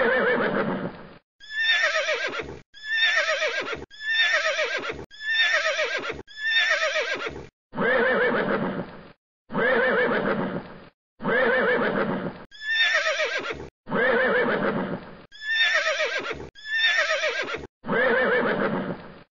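Horse whinnying over and over: about fourteen neighs in a row, each roughly a second long, starting and stopping abruptly with short silent gaps. The same two recorded neighs take turns again and again.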